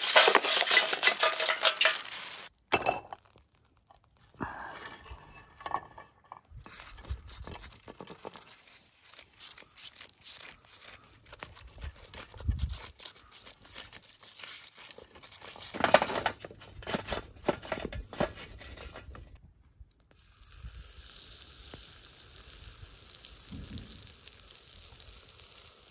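Hot charcoal tipped from a chimney starter into a clay charcoal grill, a loud rattling rush for about two seconds. Then scattered scraping and light clicking as a block of butter is rubbed over the hot grill pan, and from about twenty seconds in a steady sizzle as pancake batter is poured onto the hot buttered pan over the coals.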